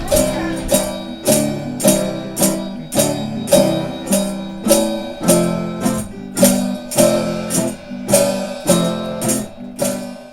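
Acoustic guitar strummed in a steady rhythm, about two strums a second.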